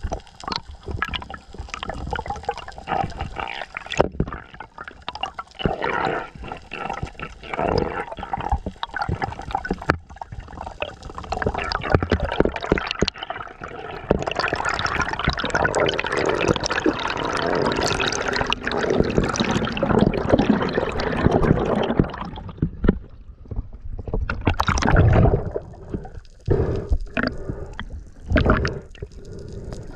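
Sea water splashing, sloshing and gurgling around a camera in the water as a diver swims, in uneven bursts that thicken into continuous churning for several seconds in the middle.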